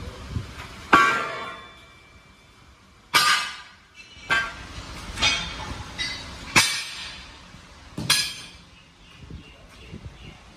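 Metal clanging: six sharp strikes on metal, spaced irregularly one to two seconds apart, each ringing briefly.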